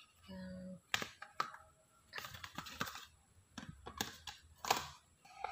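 Hands handling phone packaging: a clear plastic phone case, paper leaflets and a cardboard box, making scattered clicks, taps and short rustles.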